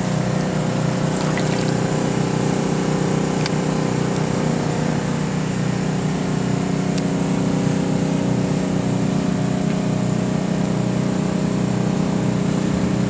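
A small engine running steadily at a constant speed, an even drone that holds one pitch throughout.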